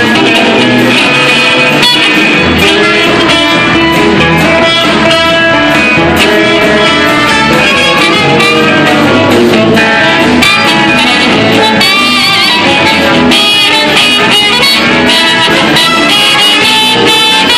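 Live blues band playing: electric guitar leading over bass guitar and drums, with a trumpet joining in.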